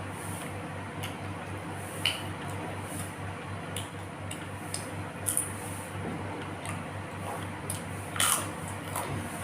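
Close-up eating sounds: chewing, with scattered small clicks and wet smacks, the loudest about eight seconds in, over a steady low hum.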